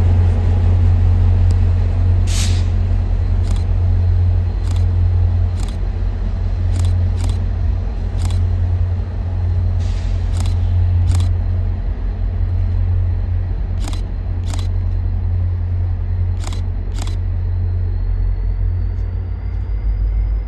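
A train rolling by slowly: a steady deep rumble with irregular sharp clicks, several in pairs, as wheels cross rail joints. A faint high whine rises slightly near the end.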